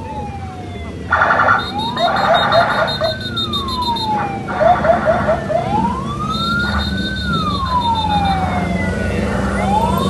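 Emergency vehicle sirens wailing in slow rising and falling sweeps, about one every four seconds, with short loud blasts and bursts of quick yelps in between, over the low rumble of the convoy's engines.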